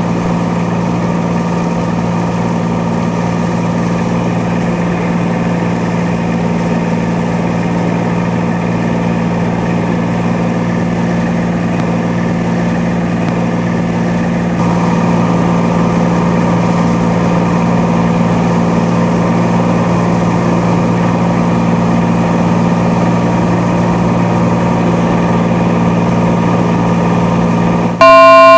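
Cessna 182T's six-cylinder Lycoming engine and propeller droning steadily in the cabin on final approach, a little louder about halfway. A brief, very loud steady tone with several pitches sounds near the end.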